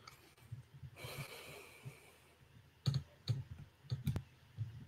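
Faint clicks of a computer mouse and keyboard, a handful of short sharp clicks, mostly in the second half.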